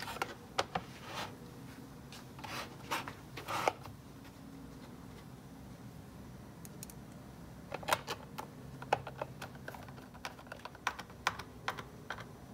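Irregular small clicks and taps of a plastic battery-pack case and its small screws being handled on a bench, in two flurries with a quieter gap in the middle.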